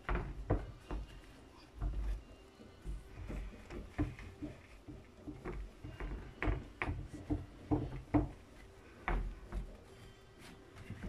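Hands pressing and pushing pizza dough out across a metal oven tray, with irregular short knocks and soft thumps as the tray is pushed against the wooden board under it.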